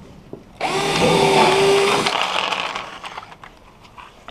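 Cordless drill running at speed in one burst of about a second and a half, a steady whine that starts about half a second in and then dies away. A few faint clicks follow.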